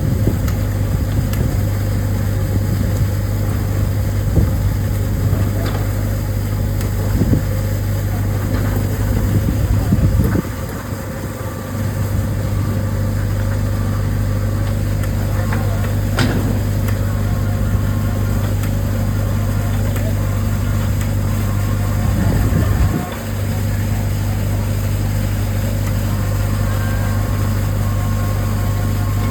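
Steady low hum of the steamship's machinery, with a few faint higher tones over it. The hum dips briefly twice, about ten seconds in and again near twenty-three seconds, each time just after a short louder rumble.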